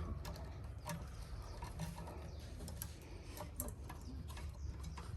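Faint, irregular light clicks and taps from a thin metal hive strap and its buckle being handled and sized.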